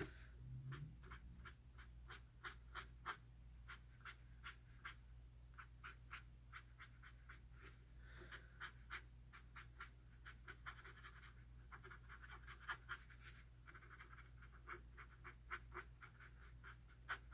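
Marker scribbling back and forth on sketchbook paper: faint, quick scratchy strokes, several a second, coming in runs over a steady low hum.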